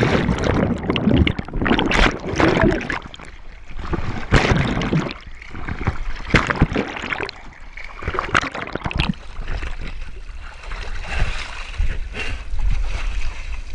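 Water splashing and gurgling around a swimmer's action camera in irregular surges, as the swimmer surfaces and moves through the water to the rocks.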